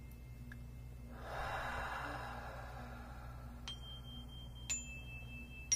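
A long breath out, then three small struck metal chimes ringing one after another, each a clear sustained tone a little lower than the one before.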